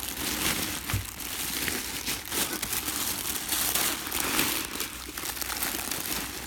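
Plastic wrapping around a helmet crinkling and crackling steadily as it is handled and pulled open.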